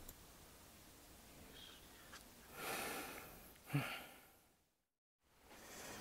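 Quiet room tone with a person's breath: an exhale about two and a half seconds in and a short breathy sound just after it, followed by about a second of dead silence.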